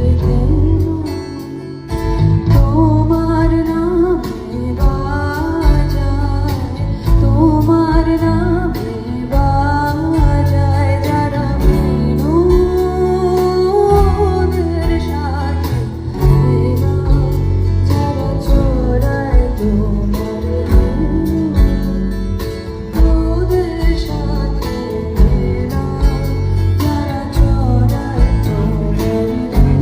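Live band playing a song with a sung lead vocal over guitar, bass and steady drum hits.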